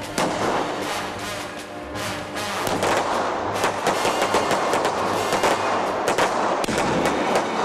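Revolver gunfire in a shootout: many sharp shots in quick succession, growing denser after the first couple of seconds, with music underneath.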